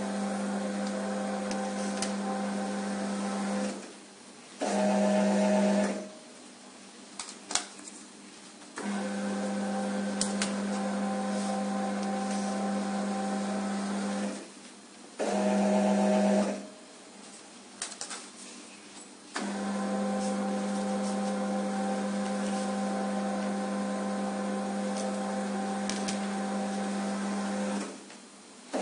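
Conveyor belt of a QMAX NF-1 needle detector running with a steady hum, stopping and restarting three times. After each run comes a louder, different hum of about a second and a half, and the pauses hold a few light clicks and knocks.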